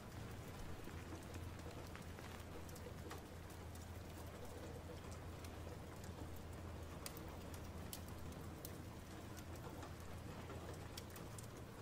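Faint ambience soundscape bed: a steady low hum under a soft hiss, with scattered light ticks.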